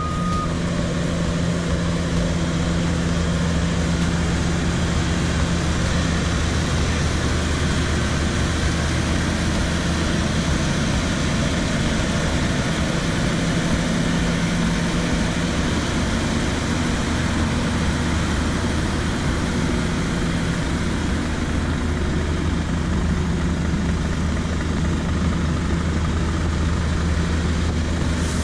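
Scania P340 truck's diesel engine idling steadily, a constant low hum with no change in speed.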